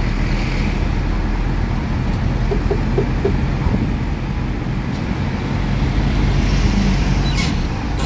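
Steady engine and tyre noise of a songthaew pickup-truck taxi, heard from on board as it drives along a highway. A short sharp knock or rattle comes near the end.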